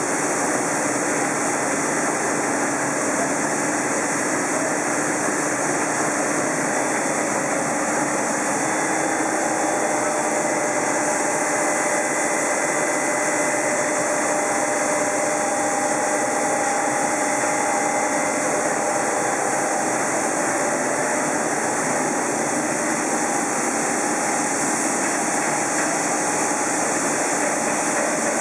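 Plastic film recycling pelletizing line running steadily, a constant machine drone with a few faint steady hums and whines in it.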